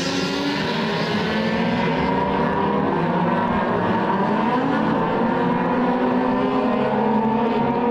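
Several open-wheel single-seater race cars running on the circuit at once: a steady overlapping engine sound of several pitches, each rising and falling a little.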